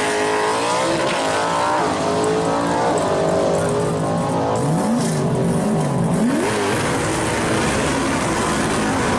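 1969 Camaro Z28 drag car's engine revving at the starting line, its pitch sweeping up and down several times. Near the end it is held at high revs as the rear tires spin in smoke.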